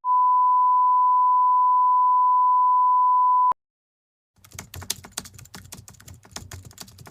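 A steady, loud electronic beep tone holds for about three and a half seconds and cuts off with a click. After a short silence, rapid irregular light clicking and tapping begins.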